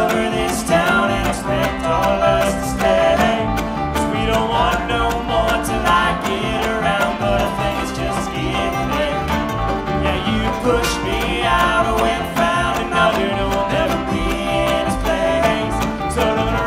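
Live bluegrass band playing an instrumental break: banjo, acoustic guitar and mandolin picking fast notes over a walking upright bass.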